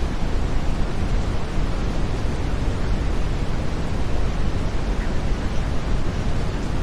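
Steady brown noise: an even, unbroken rumbling hiss, strongest in the bass and fading toward the treble.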